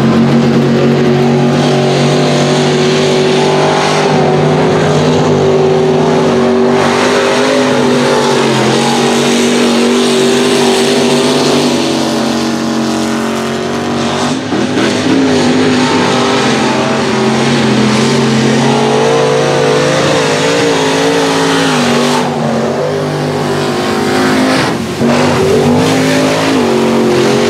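Mud race truck engines running hard at high revs, their pitch rising and falling as the trucks power through the mud pits.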